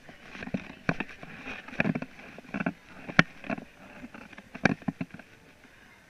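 Irregular knocks, taps and rubbing from a chest-mounted action camera being jostled as the baby wearing it moves, about a dozen sharp knocks at uneven spacing.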